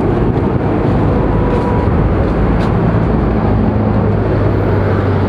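Steady street traffic noise: a continuous wash of passing motor vehicles over a low, constant engine hum.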